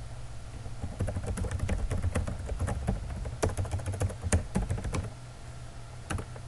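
Typing on a computer keyboard: a quick run of keystroke clicks, thinning out near the end, over a low steady hum.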